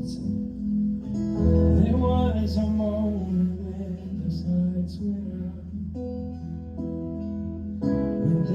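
Instrumental opening of a worship song: acoustic guitar chords over a sustained low bass, the chord changing every few seconds, with a brief melodic line a couple of seconds in.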